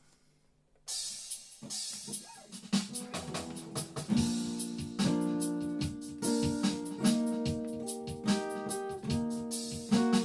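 Instrumental intro of a slow soul-country song: piano or electric keyboard chords with guitar and drums, starting about a second in after near silence.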